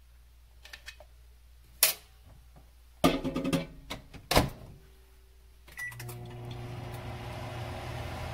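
Knocks and clatters of kitchenware, then a short beep, and a microwave oven starts running with a steady hum about six seconds in.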